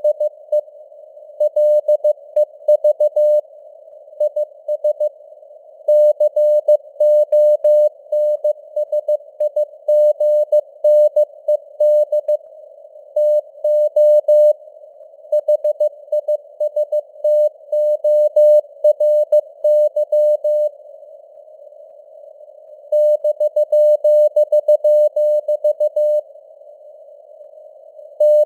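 Morse code at 15 words per minute: a single mid-pitched tone keyed on and off in dots and dashes, over a narrow band of simulated radio hiss like a CW receiver's filtered noise. The keying stops twice for about two seconds in the second half.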